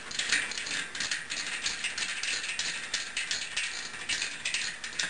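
Rapid, irregular ratcheting clicks as a bicycle freewheel is threaded back onto the rear hub.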